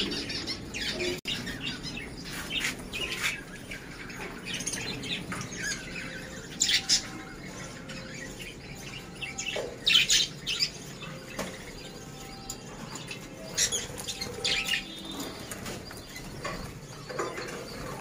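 Budgerigars chirping and chattering, with a few short, sharp louder calls standing out every few seconds.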